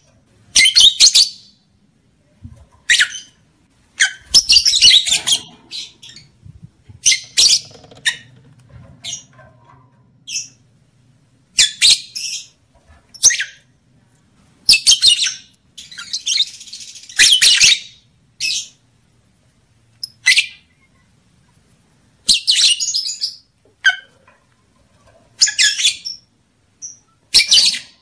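Lovebird giving short, shrill, chattering calls in irregular bursts every second or two. This is the kind of calling used as a breeding lure to rouse males and bring females into heat.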